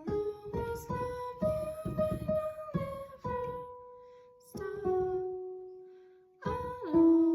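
A woman singing a slow song to a plucked acoustic string instrument, with long held notes; the singing fades on a held note and pauses briefly about six seconds in, then starts again.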